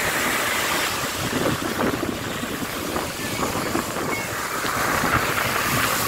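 Sea surf breaking and washing up a sandy beach in a steady rush, with wind buffeting the microphone.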